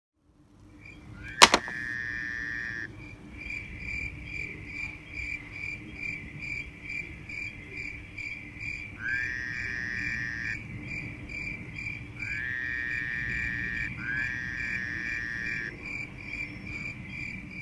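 Insect chorus: a short chirp repeating about two or three times a second, joined four times by a longer buzzing call that lasts a second or so, over a low steady hum. A sharp click about a second and a half in is the loudest sound.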